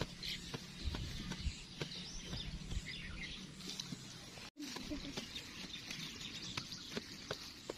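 A small hand tool digging and scraping into soil, with scattered knocks and clicks as earth is worked and bricks are set in the ground; birds chirp in the background.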